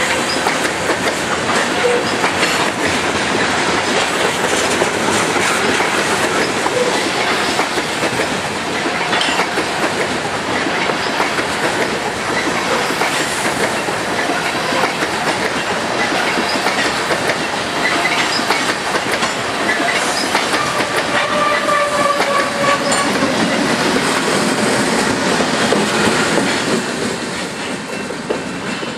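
Freight train of covered hopper cars rolling past close by, with the steady noise of steel wheels on the rails and a few brief squealing tones from the wheels. Near the end a locomotive at the tail of the train goes by and the noise begins to fall away as the train leaves.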